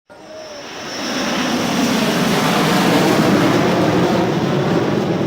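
Military fighter jet flying past: its jet noise swells over the first second or two, peaks around the middle, and begins to fade near the end. A faint high whine is heard at the start.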